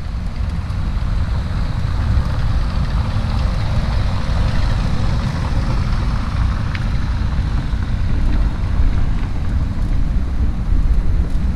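Moving car: steady road and engine noise with a heavy low rumble.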